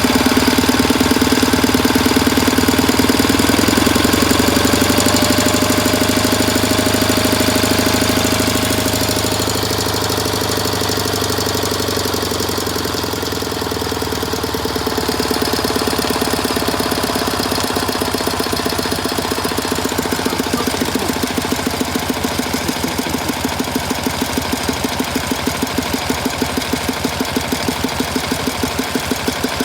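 A K-750's side-valve flat-twin engine running with a dull, rhythmic thumping knock from the air filter. The engine speed eases off about ten seconds in and then holds steady. The knock stays with the clutch pulled, and the owner suspects the crankshaft or possibly the camshaft.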